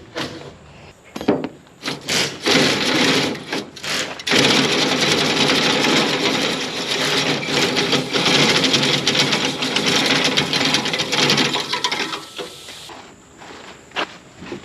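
The sickle knife of a MacDon combine header being pulled out endwise through the cutter bar guards: a few scrapes and knocks, then a continuous rasping chatter for about eight seconds as the knife sections slide through the guards, ending in a few knocks.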